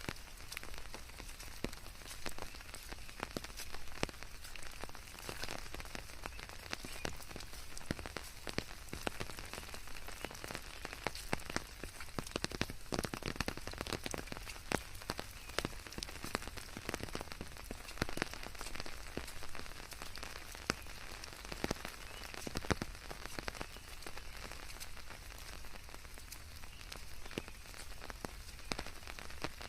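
Steady rain falling, with many individual drops pattering and ticking on a hard surface over a continuous hiss.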